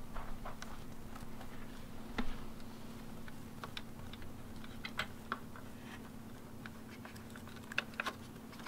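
Irregular small plastic clicks and taps as the LED flasher relay is slid onto its rubber-mounted clip and the plastic headlight cowl is handled, over a faint steady hum.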